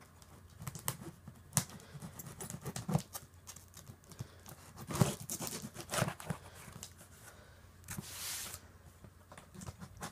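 A cardboard shipping box being handled and opened by hand: irregular knocks and clicks against the box, with a brief rasping noise about eight seconds in.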